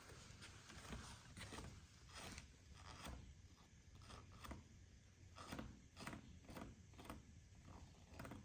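Hemp rope being handled: a run of faint rubbing and scraping strokes, about two a second.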